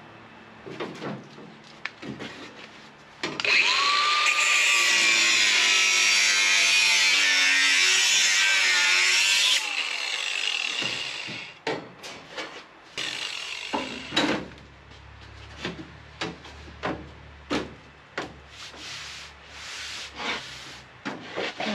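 Cordless angle grinder with a cut-off disc cutting through car-body sheet metal for about six seconds, its motor pitch rising as it spins up and sagging under the cut, then winding down. Afterwards come a series of light metal clanks and taps as the cut panel is handled.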